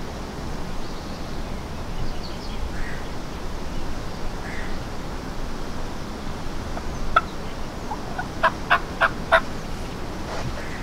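Wild turkey calling: one sharp note about seven seconds in, then a quick run of four loud notes about a second later.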